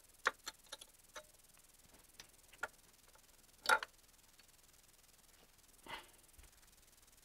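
Light metal clicks and clinks of camshaft bearing caps and a camshaft being handled and lifted off a BMW M54 cylinder head. A louder knock comes about three and a half seconds in and another about six seconds in.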